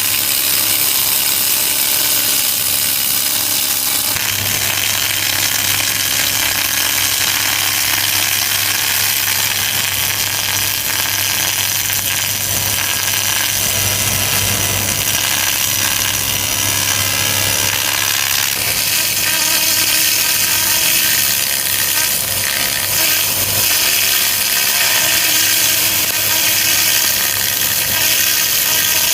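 A DMK 200-watt pulsed laser cleaning machine working on a clutch pressure plate, making a steady hissing buzz over a low hum as it strips rust and contamination from the metal.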